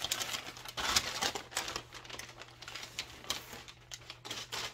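Blu-ray case and its packaging handled, giving a quick, irregular run of crinkles and small plastic clicks.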